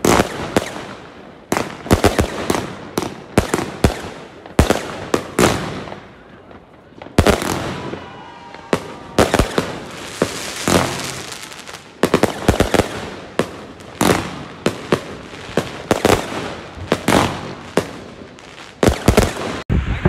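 Fireworks going off across a neighbourhood: an irregular, rapid string of loud bangs from bursting aerial shells, mixed with crackling, and a brief whistle about eight seconds in.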